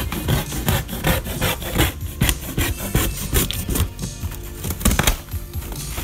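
Cardboard packaging scraped and rubbed in quick, irregular strokes while a toy box is unpacked, over background music.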